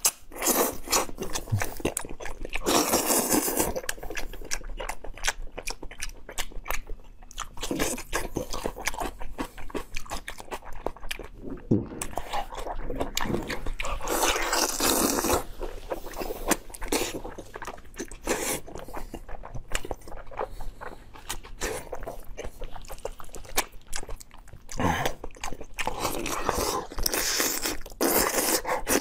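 A person eating braised lamb trotters: wet biting, chewing and sucking on the gelatinous skin, with many sharp crunchy clicks throughout. There are three longer, louder sucking stretches, about two, fourteen and twenty-six seconds in.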